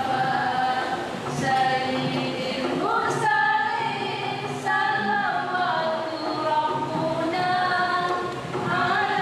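Three women singing a nasyid together without accompaniment, in long held notes with an upward swoop about three seconds in and again near the end.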